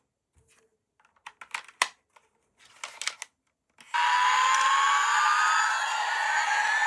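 Sharp plastic clicks and taps of a toy being handled. Then, about four seconds in, a loud electronic sound effect from a toy starts suddenly: a hissing rush with a whine that rises steadily in pitch.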